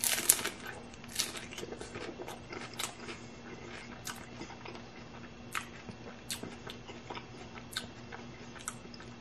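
A bite into a crispy hard-shell taco, with a loud crunch right at the start, then close-up chewing with sharp shell crunches about once a second.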